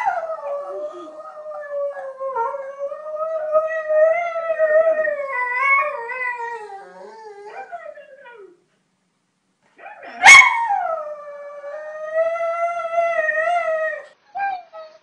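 A dog howling: two long howls, each starting high and sliding down into a long wavering note. The first lasts about eight seconds; the second begins about ten seconds in and runs about four seconds.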